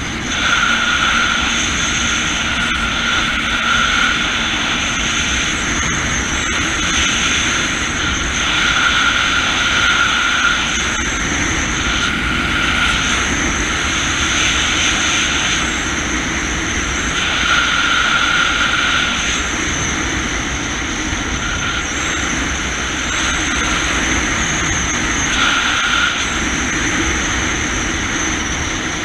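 Jet ski engine and jet pump running steadily at cruising speed, with wind and water noise over the mounted camera; a high whine swells in and out every couple of seconds.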